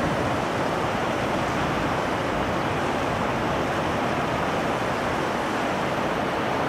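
River water rushing steadily, an even noise with no breaks.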